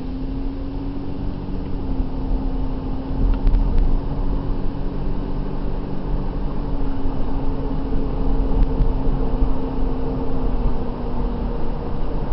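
Car running at low speed, heard from inside the cabin: a steady engine hum over low road rumble.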